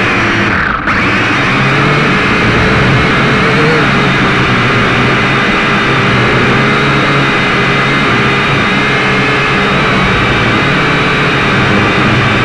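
Syma X5C-1 quadcopter's motors and propellers whirring, picked up close by its onboard camera's microphone: a loud, steady whine that dips briefly about a second in.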